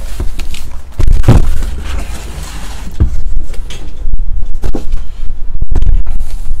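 Cardboard case and shrink-wrapped card boxes being handled, with a sharp knock about a second in, another at three seconds and smaller clicks after. Under it all runs a loud, steady low rumble of wind buffeting the microphone from an open window.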